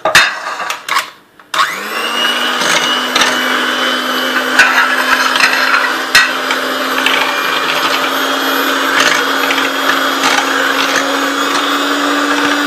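Electric hand mixer whipping cream in a glass bowl. After a few knocks, the motor starts about a second and a half in and runs with a steady whine that creeps slightly up in pitch, with occasional clicks from the beaters.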